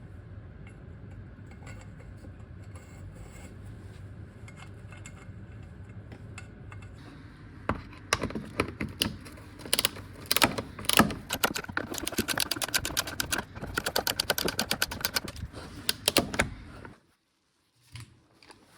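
Ratchet wrench clicking in quick runs with metallic tool clinks, starting about eight seconds in after a faint low background. It stops abruptly near the end.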